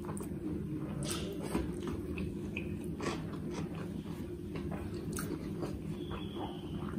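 Close-up chewing and mouth sounds of a person eating rice with curry, with small clicks and squishes of fingers mixing rice on a plate, over a steady low hum.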